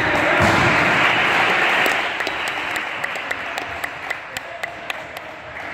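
Small group of spectators and bench players clapping in a sports hall. The clapping is loudest over the first two seconds, then dies away to a few scattered claps.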